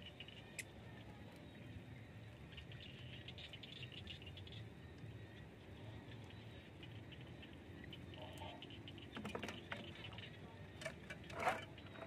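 Light splashing in shallow water and a few knocks and rustles against a plastic bucket, the loudest a short burst near the end.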